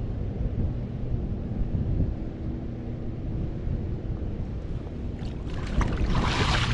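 Low rumble of wind on the microphone, then, about five seconds in, water splashing and sloshing as a gold pan is swirled and tipped in a shallow river.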